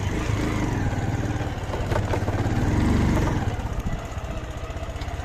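Motorcycle engine running on the move. It swells a little about three seconds in and eases off soon after, with a few light knocks.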